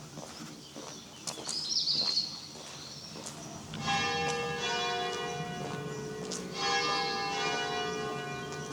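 A church bell striking twice, about three seconds apart, each stroke ringing on and slowly fading. A bird chirps briefly before the first stroke.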